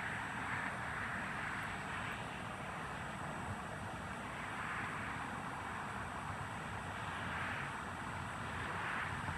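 ASC RM130 rotating outdoor warning siren sounding during its test, its tone swelling and fading about every two and a half seconds as the horn turns, with low wind rumble on the microphone.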